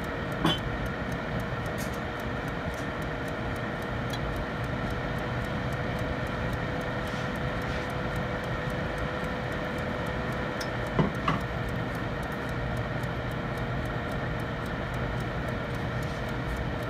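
Countertop convection oven running: a steady fan hum with a faint whine. There is a sharp click about half a second in and a quick double click around eleven seconds.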